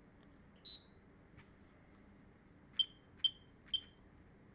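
The lock's piezo beeper module gives one short higher beep about 0.7 s in. Then it gives three short beeps about half a second apart as code digits are tapped in on the touch keypad, each with a faint tap just before it.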